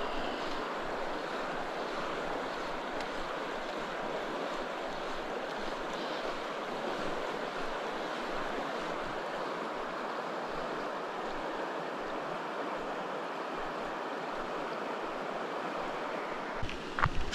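River water rushing steadily, with a few sharp knocks near the end.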